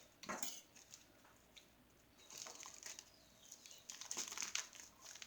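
Hands working a cardboard shipping package open: a few short scrapes and rustles of packaging with quiet gaps between.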